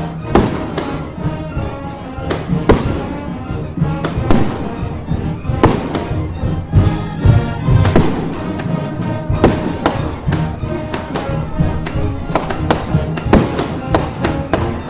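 Festival music playing with firecrackers going off over it in a rapid, irregular string of sharp bangs.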